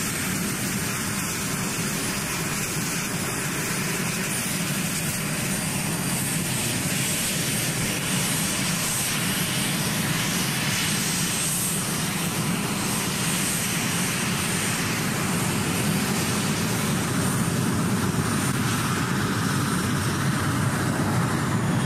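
Cessna A-37 Dragonfly's twin turbojet engines running as the jet taxis: a steady jet roar with a thin high whine on top, growing slightly louder near the end.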